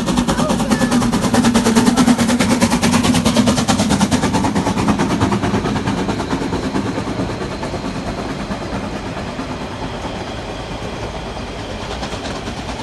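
Narrow-gauge steam locomotive working hard uphill, its exhaust beats coming in a rapid, even rhythm. The beats are loudest in the first few seconds and fade as the engine pulls away and the carriages roll past.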